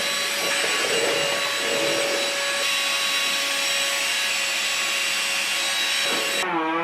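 An electric appliance motor running steadily with a loud rushing whine, cutting off suddenly near the end.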